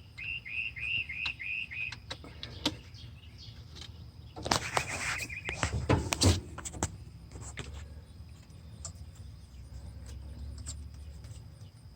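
A bird chirping in a quick even series, about four short chirps a second, which stops about two seconds in. A few seconds later comes a burst of sharp clicks and rattling from hands handling metal and plastic parts.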